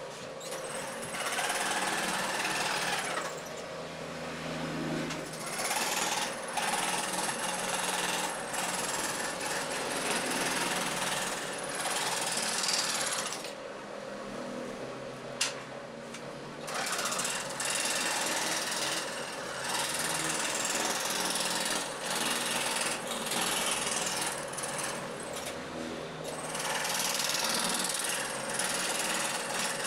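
Traditional overhead-arm jigsaw with its blade going up and down fast through a plywood board, a steady rapid chattering saw noise as a fretwork pattern is cut. The cutting noise eases off briefly about three seconds in, and again for a few seconds in the middle.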